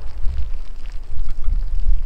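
Active lava flow from a fissure eruption: a deep, uneven rumble with faint scattered crackles.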